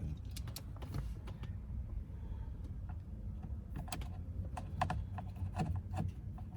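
Irregular light metallic clicks and taps of small screws and a screwdriver being handled as Torx screws are refitted in dashboard trim, bunching together past the middle, over a steady low rumble.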